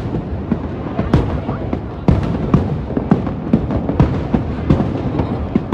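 Aerial firework shells bursting one after another, sharp bangs two or three times a second over a continuous rumble.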